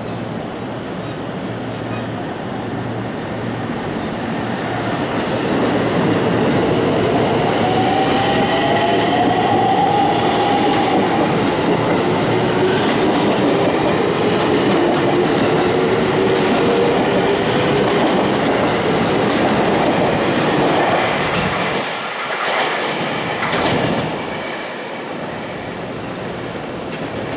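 JR Central 313 series electric multiple unit pulling out and accelerating past: a steady hum while it stands, then the traction motors' inverter whine rising in pitch with wheel noise and rail-joint clatter, easing off after about twenty seconds as the train leaves.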